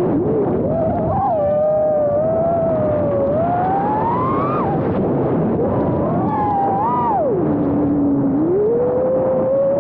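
iFlight Nazgul Evoque F5 five-inch FPV quadcopter's brushless motors whining over propeller and wind noise, heard through the onboard Caddx Peanut camera's microphone. The pitch rises and falls with the throttle, dropping low for about a second near the end before climbing again.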